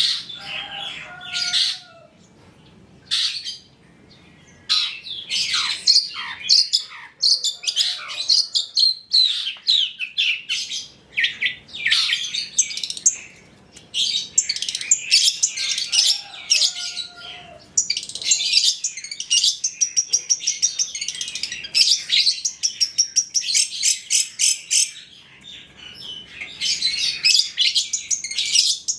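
Long-tailed shrike (cendet) singing a fast, varied song of chirps, trills and rapid repeated notes, packed with imitations of other birds' songs. There is a short pause a couple of seconds in; after that the singing is almost continuous.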